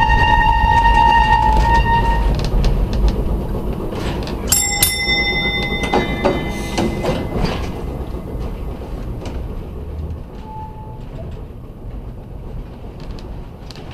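Historic streetcar running round a tight terminal loop, its steel wheels squealing on the curve in long steady tones over the rumble and clicking of the wheels on the rails. One squeal fades about two seconds in; a higher one starts suddenly about four and a half seconds in. The running sound grows quieter in the second half.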